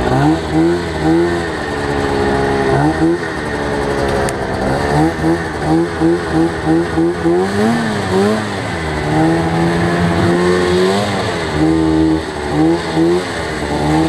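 Arctic Cat snowmobile engine revving in short bursts as the sled pushes through deep powder, with a quick run of throttle blips near the middle and a longer steady pull a little later.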